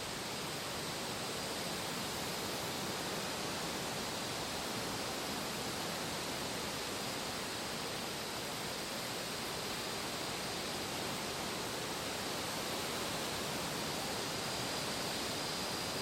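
Steady, even rushing noise from an autumn ambience track, unchanging and without distinct events.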